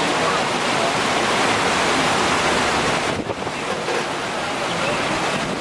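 Hurricane-force wind with driving rain: a steady, loud rush of noise, with wind buffeting the microphone. It eases a little about three seconds in.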